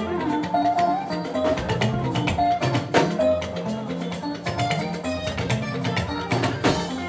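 Live Fuji band music: a guitar picking a melody over drums and percussion.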